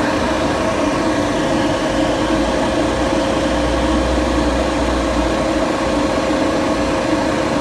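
Refrigerant recovery machine running steadily with a constant hum, pulling the last R-22 out of a system that is down to about 1 psi. A low rumble swells from about two and a half seconds in and fades out near the middle.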